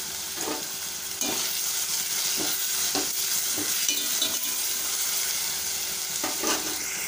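Chopped onions and tomatoes sizzling in hot oil in a steel pan, with a spatula stirring and scraping the pan in repeated strokes as the tomatoes are sautéed down until soft. The sizzle gets louder about a second in.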